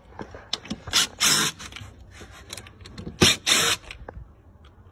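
DeWalt cordless drill backing out a hidden Camo deck screw driven at an angle through the edge of a deck board, in two short bursts about a second and three seconds in.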